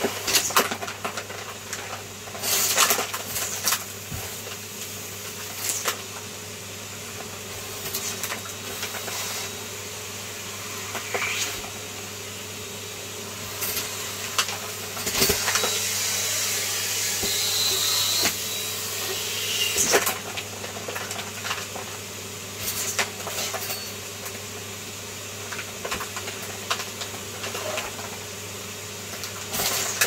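Numatic James tub vacuum cleaner running steadily, with frequent clicks and rattles as small debris is picked up, and a louder rush of air for a couple of seconds around the middle.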